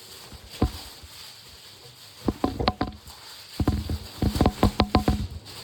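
Packaging being handled as a boxed appliance is unpacked: a single knock about half a second in, then two clusters of quick taps and crinkles from about two seconds in.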